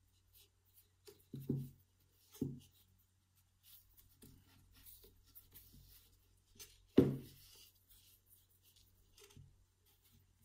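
Frame loom knocking against the desk as yarn is pulled taut and knotted on it: a few dull knocks, the loudest about seven seconds in, with faint rustling of yarn between them.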